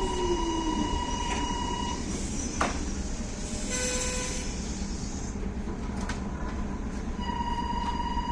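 Railway level crossing's electronic warning bell ringing, falling silent about two seconds in and starting again near the end, over the low rumble of a train at the platform. In the gap there is a sharp clack and then a brief hiss from the train.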